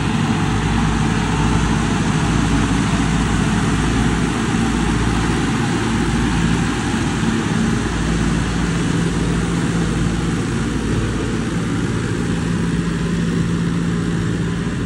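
Heavy engine-driven machinery running steadily, with a constant low hum under a broad mechanical noise, as in farm machinery at work making maize silage.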